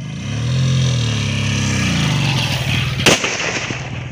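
Composition taken from a sky shot firework burning on the ground with a strong hiss, then a single sharp bang about three seconds in. A motorcycle engine runs close by, its pitch rising and falling.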